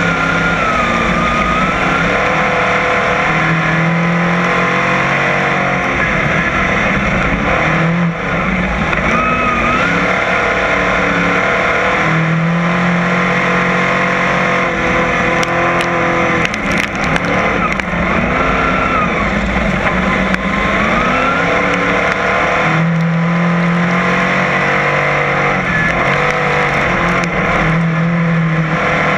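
Crate modified race car's V8 engine heard from inside the cockpit at racing speed, loud throughout, its revs dropping and climbing again every few seconds lap after lap.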